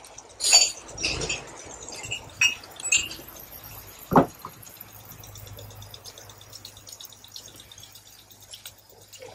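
A few light clinks in the first three seconds, then a single dull knock about four seconds in.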